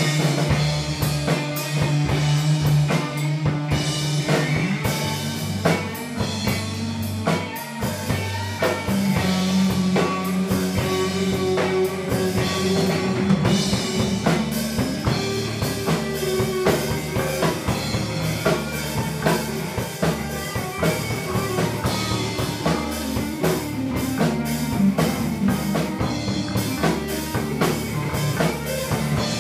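Recording of a rock band rehearsal: drum kit and guitar playing a steady groove, with held low notes that shift every few seconds.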